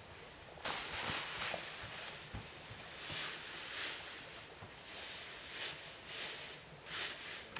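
Dry grass rustling in irregular swells as it is handled and piled up by hand.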